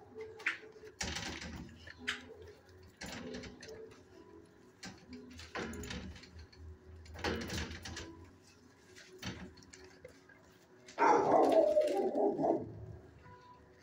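Dogs barking in a shelter kennel area, short separate barks every second or two, with a louder, longer burst of barking about eleven seconds in.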